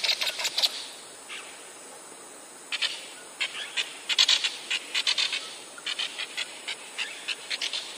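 Wild animals calling in quick bursts of short, high chirps. The bursts are dense at the start, pause briefly, come again in clusters from about three seconds in, and turn scattered near the end.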